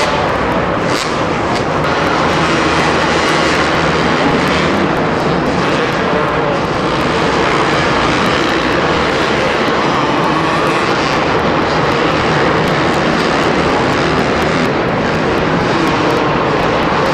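Two-stroke motocross bikes running on a supercross track, a loud, steady engine noise throughout.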